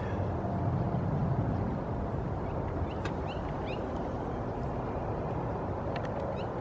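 Steady outdoor background rumble with a few faint, short high chirps, a cluster about two and a half seconds in and another near the end.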